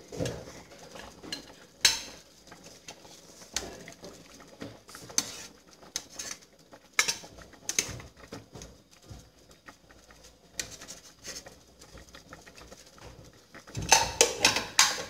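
Metal spoon knocking and scraping against a stainless steel cooking pot while fishing meat pieces out of the soup, in scattered clinks with a quick cluster of them near the end.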